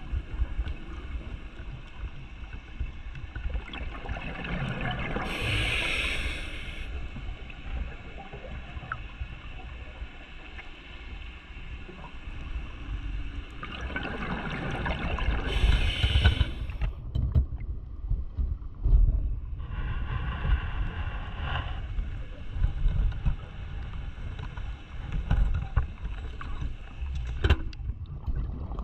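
Underwater camera audio of a scuba diver breathing through a regulator: three bursts of exhaled bubbles over a steady low rumble of water against the camera housing.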